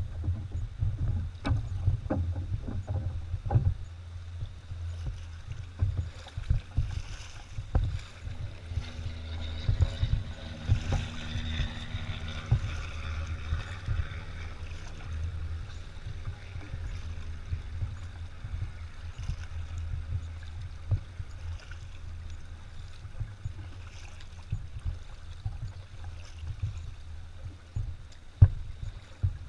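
Kayak paddling: a double-bladed paddle dipping and splashing in the water in irregular strokes, over a steady low rumble. Around the middle, the hum of traffic crossing the highway bridge swells and fades.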